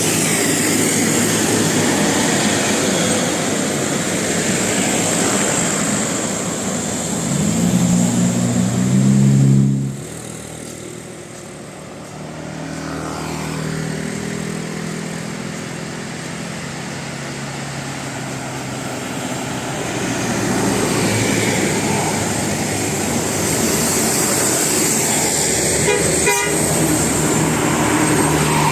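Heavy road noise from passing buses. About eight seconds in, a bus's telolet horn plays a short tune of several stepped notes, and the noise then drops away suddenly.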